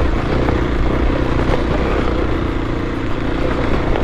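Kawasaki KLX250 single-cylinder four-stroke dirt bike engine running steadily under load while climbing a rocky hill.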